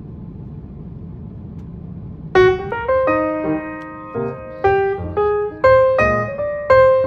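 Background piano music: a light melody of single notes and chords that begins about two and a half seconds in. Before it there is only a low steady rumble of airliner cabin noise.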